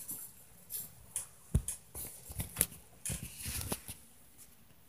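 Rustling, scraping and clicking of a phone being handled and moved, with a dull thump about a second and a half in and a few softer knocks near the three-second mark.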